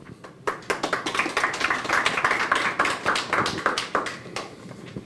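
A short round of hand clapping by a small group, many quick overlapping claps that thin out near the end.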